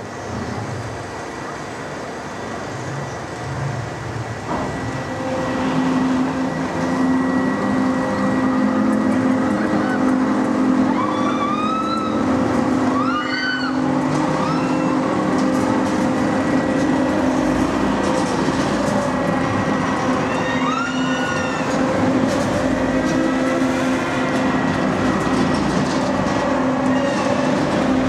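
Huss Giant Frisbee pendulum ride running, its drive giving a steady hum that sets in a few seconds in and grows louder. Riders scream as the gondola swings, around the middle and again a few seconds later.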